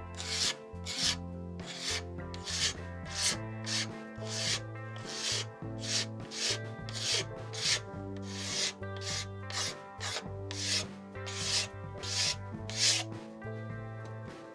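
A scraper held upright at 90 degrees scraping the faded plastic tank side cover of a 1987 Honda XL600 RMG in short, rasping strokes, about two to three a second. It is shaving off the thin oxidised top layer of the plastic. Background music plays underneath.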